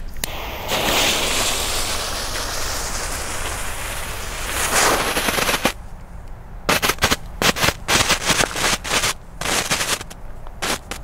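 Small ground firework (Komet 'Horrorhaus' youth firework) going off: a steady hiss for about five seconds, then a quick, irregular run of sharp cracks and small bangs.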